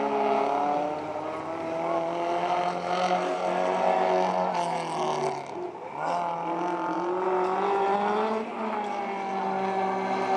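Race car engines running hard on the track. The engine note climbs, drops sharply about halfway through, then climbs again, with another dip near the end.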